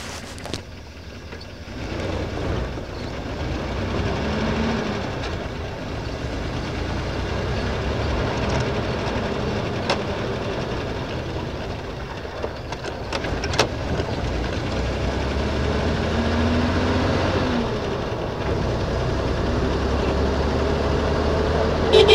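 An open-top Jeep driving along a road: its engine runs steadily under wind and road noise, with the revs rising and falling twice, about four seconds in and again near sixteen seconds. Two brief knocks come around the middle.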